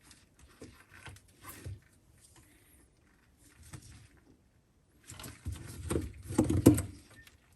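Handling noises from plastic sink drain parts being fitted: scattered small knocks and rustles, a quiet stretch in the middle, then a busier cluster of knocks and scrapes near the end.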